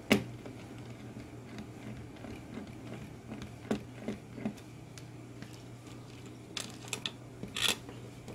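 Light, scattered clicks and taps of a precision screwdriver turning the small mounting screws of a TV's T-con board against the sheet-metal back panel. There is a sharp click right at the start and a few more clicks in quick succession near the end.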